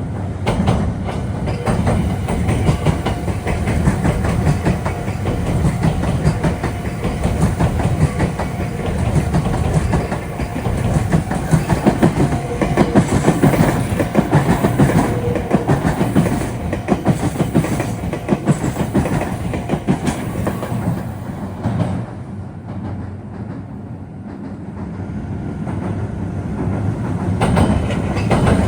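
Meitetsu electric train passing close by over the junction's tracks, its wheels clattering over rail joints and points. The noise dips about 22 seconds in, then builds again near the end.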